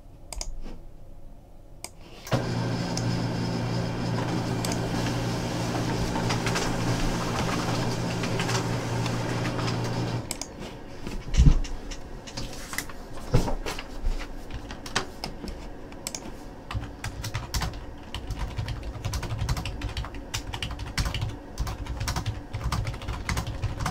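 A printer running steadily for about eight seconds, starting a couple of seconds in, followed by scattered computer keyboard and mouse clicks, with one louder knock just after the printer stops.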